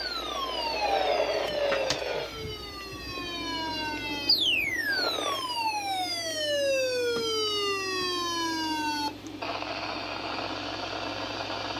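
A siren-like tone falling steeply in pitch, twice: the second fall starts about four seconds in and slides down over about five seconds. Near the end it gives way suddenly to a steady hiss.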